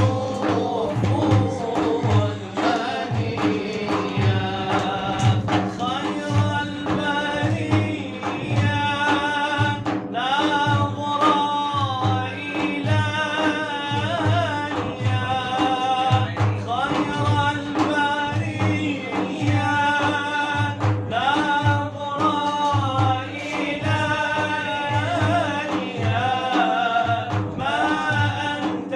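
A male voice chanting an Arabic religious song (inshad) in long, ornamented melodic lines over a steady low drum beat of about one stroke a second.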